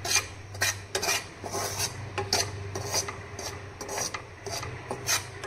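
Spatula scraping and stirring dry wheat flour in a kadai, a rasping stroke about twice a second, as the flour is roasted on a low flame.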